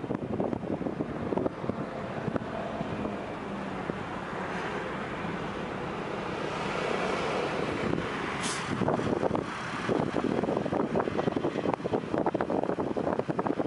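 Road traffic passing: a vehicle swells up and fades away through the middle, with a short hiss at its loudest point. Wind buffets and crackles on the microphone before and after it.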